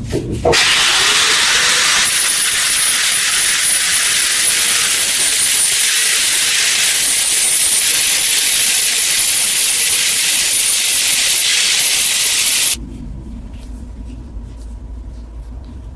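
A loud, steady hiss, mostly high in pitch, that cuts off suddenly about thirteen seconds in, leaving a quieter low rumble.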